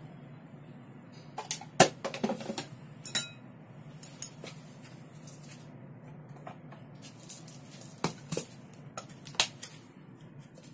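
Clinks and knocks of a spoon and seasoning containers against a ceramic bowl, in two scattered clusters, starting about a second in and again about eight seconds in, over a faint low hum.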